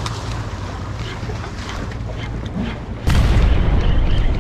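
Strong wind buffeting the microphone by the sea, a steady rumble that suddenly gets much louder about three seconds in.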